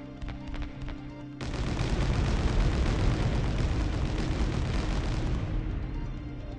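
Background music, then about a second and a half in a sudden loud explosion sound effect, a dense rush of noise that lasts about four seconds and fades away.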